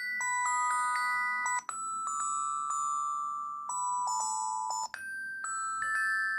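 LG KG225 mobile phone playing a built-in polyphonic ringtone through its small speaker: a synthesized, chime-like melody of steady notes in several voices, breaking off twice very briefly.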